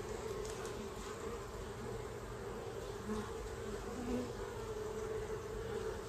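Honey bees humming from an open hive as a frame covered in bees is held up: a steady hum, with a couple of brief lower buzzes about three and four seconds in.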